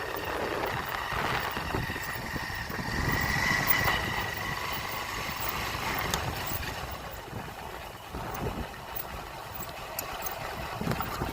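Honda XR150L's single-cylinder four-stroke engine running steadily in second gear at low road speed, with a faint steady whine in the first few seconds.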